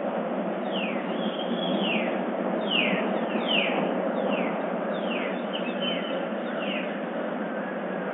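Dawn chorus of birds: short, downward-sliding calls repeated throughout, sometimes two or three in quick succession, over a steady background noise.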